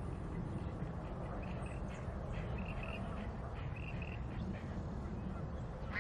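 A bird calling in short notes, several in quick succession, over a steady low rumble.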